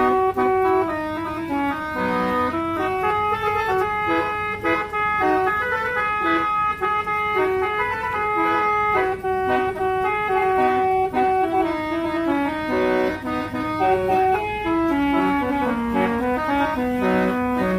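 Musical vehicle horn playing a tune: reedy held notes that step up and down in pitch without a break.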